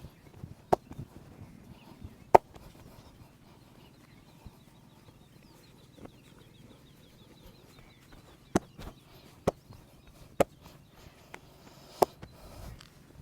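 Sharp, isolated smacks of a massage, about six spread unevenly with a long pause in the middle, the loudest about two seconds in.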